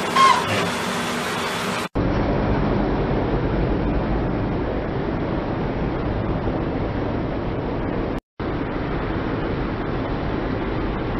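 Steady low rumbling noise of a car rolling slowly over concrete, with a short squeak a fraction of a second in. The sound cuts out abruptly for an instant about two seconds in and again about eight seconds in.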